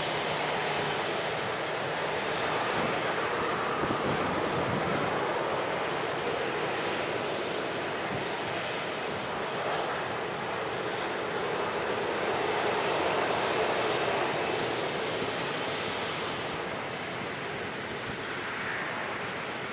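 Boeing 737-800 jet engines running at taxi power, a steady rushing hum that swells a little twice.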